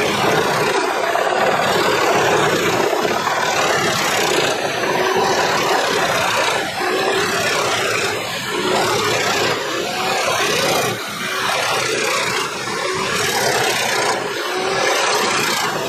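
Large industrial wood chipper running under load as whole logs are fed in and chipped: a loud, steady, dense grinding and rasping over the engine.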